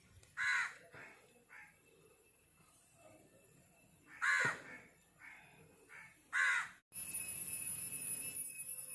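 Crows cawing: three loud caws, about half a second in, four seconds in and six and a half seconds in, with fainter calls between. About seven seconds in, the sound drops out for a moment and a steady hiss with a thin high whine takes over.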